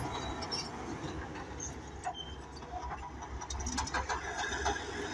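Bulldozer's diesel engine running steadily with a low rumble, with a quick run of clanks and clicks between about three and a half and four and a half seconds in.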